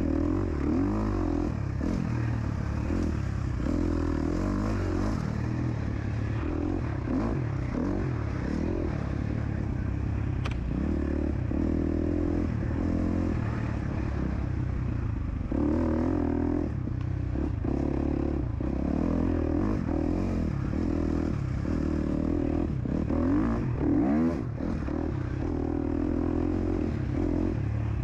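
KTM SX-F 250's single-cylinder four-stroke engine revving hard under load, its pitch rising and falling again and again as the rider opens and closes the throttle and shifts gears on a dirt trail.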